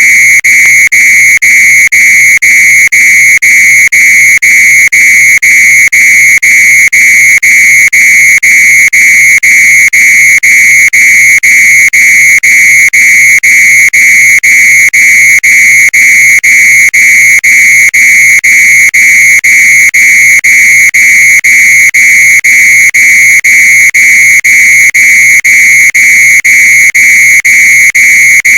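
Fire alarm sounding: a loud, piercing, high electronic tone, nearly continuous but broken by very short gaps a few times a second.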